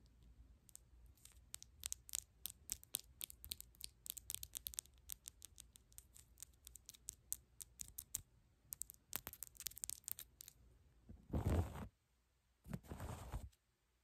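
Long press-on nails clicking and tapping against each other in quick, irregular flurries of small sharp clicks. Near the end these give way to two longer rustling swishes.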